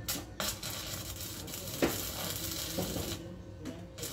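A steady hissing, crackling noise from a corded tool at work on the steel bumper mounting of a truck; it runs about three seconds, breaks off for a moment, then starts again.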